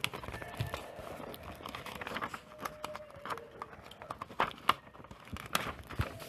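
Sheets of paper rustling and crinkling as they are handled on a desk, with scattered sharp taps and clicks; the loudest comes a little after the middle.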